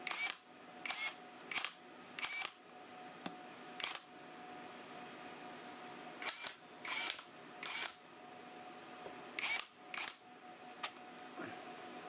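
Sharp metallic clicks and clinks of chrome-vanadium impact sockets being pushed onto and pulled off a cordless impact wrench's 1/2-inch square anvil, in quick clusters with short pauses between.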